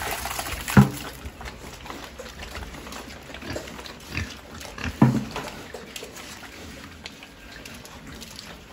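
Pigs feeding at a round trough feeder, chomping and slurping damp ground feed with many small clicks. Two loud short grunts stand out, about a second in and about five seconds in.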